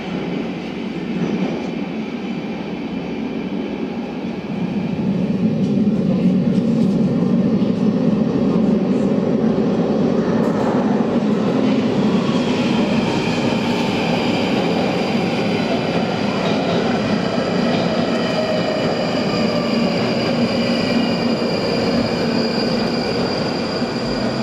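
London Underground Northern line 1995 Stock train rumbling through the tunnel and into the station. It grows louder about four seconds in, and in the second half a whine of several tones glides slowly down as the train slows.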